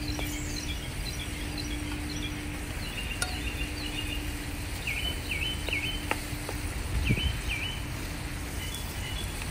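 Outdoor ambience with a steady low wind rumble on the microphone and small birds chirping in short repeated notes. A few light knocks of a wooden spoon against the cooking pot, with a louder thump about seven seconds in.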